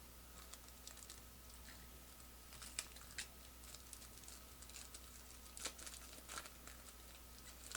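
Faint rustling and scattered light clicks of trading cards and their packaging being handled, with a few sharper clicks about three seconds in and again past the five-second mark.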